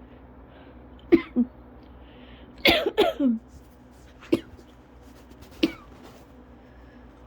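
A person coughing in short fits during a cough-variant asthma attack. There are two coughs about a second in, then a quick run of three around three seconds, then single coughs at about four and a half and five and a half seconds.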